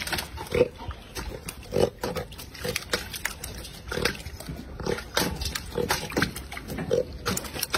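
A cormorant feeding from a steel basin of live fish: splashing water and fish slapping and thrashing against the metal as it seizes them. Short low calls recur about once a second throughout.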